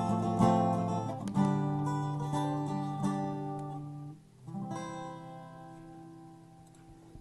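Acoustic guitar strumming the closing chords of the song, then a last chord about halfway through left to ring and slowly fade away.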